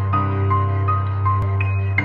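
Intro music: a sustained low drone under a repeating figure of two alternating high notes, about three notes a second.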